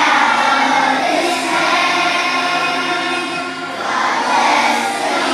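Children's choir singing together in unison, holding sustained notes.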